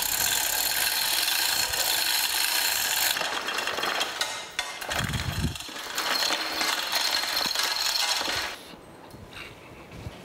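Cast iron planer cross head being slid back and forth on an inked granite surface plate: a steady grating rub, with a dull knock about five seconds in. This is spotting, which transfers the marking ink to show the high spots for hand scraping. The rubbing stops a little before the end.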